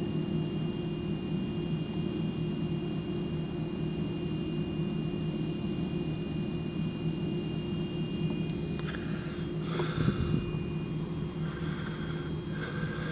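A stuck car horn sounding nonstop from a flooded car, heard through a closed window as a steady drone. A brief bump about ten seconds in.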